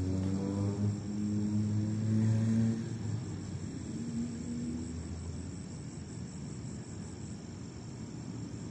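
Crickets chirping as a steady, high, continuous trill. Under it a low engine hum shifts in pitch and fades out about three seconds in.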